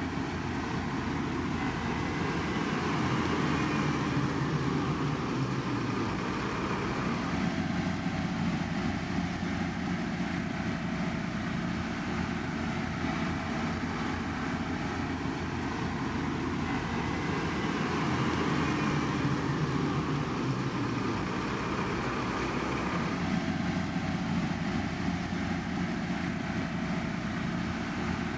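Heavy construction machinery engines running steadily, a continuous mechanical rumble that swells slightly twice.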